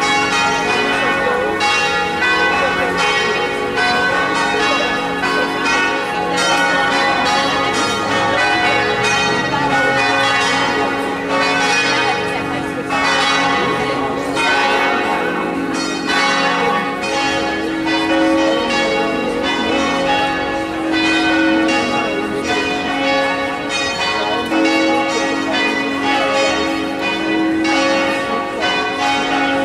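Church bells ringing, many strokes in quick succession with their ringing tones overlapping.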